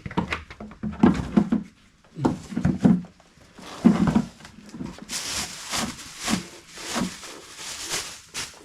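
Irregular clunks and knocks of tools and parts being handled under a car. About five seconds in, they give way to a run of short rustling, scraping sounds.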